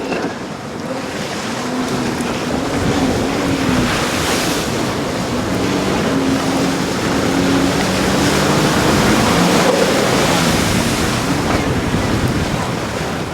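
Sea-Doo personal watercraft engine running, its pitch rising and falling as the throttle changes, over loud surf and wind noise on the microphone.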